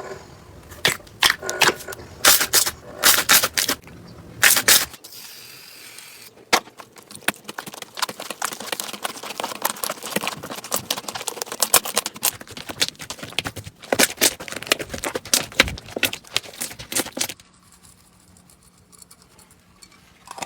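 Slime being handled, giving rapid crackling and clicking pops: loud clusters in the first few seconds, a dense run of fine clicks through the middle, and much quieter for the last few seconds.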